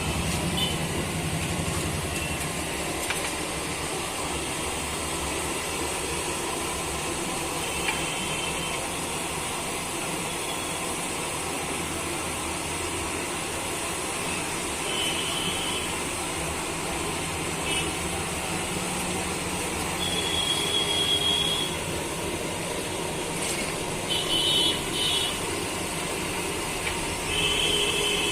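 Steady street traffic noise, with short high-pitched vehicle horn beeps several times, a cluster of them near the end.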